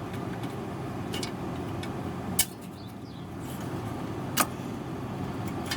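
Two sharp clicks about two seconds apart, with a smaller one near the end, from hand work on a clip in a car's engine bay, over a steady low rumble.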